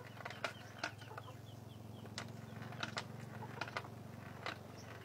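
Scattered sharp clicks and knocks from hands loading and working a homemade pipe gun (paltik), over a low steady hum. Quick series of short high chirps sound in the background.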